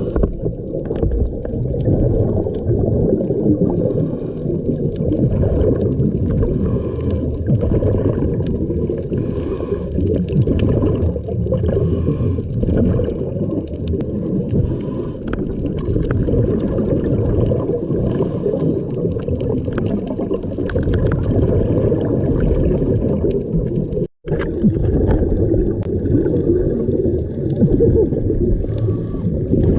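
Scuba diver breathing underwater through a regulator: a dense, low bubbling of exhaled air. It cuts out for an instant about two-thirds of the way through.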